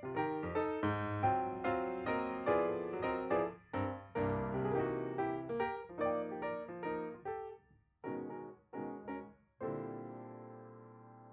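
Background piano music: a run of struck notes and chords, thinning to a few spaced notes, then one held chord that slowly fades near the end.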